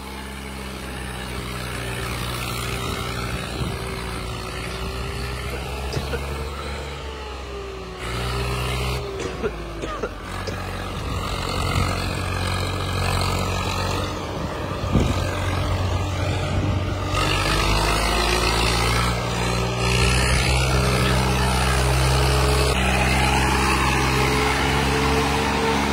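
Swaraj 855 FE tractor's three-cylinder diesel engine running hard under heavy load, hauling an overloaded trolley. Its pitch drifts up and down and it gets louder in the second half.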